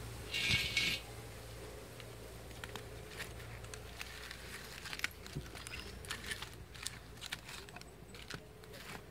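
Wood fire crackling under an iron kadai, with scattered sharp clicks and small knocks as sticks of firewood are pushed in. There is a short rasp in the first second as a cloth is wiped across the inside of the pan.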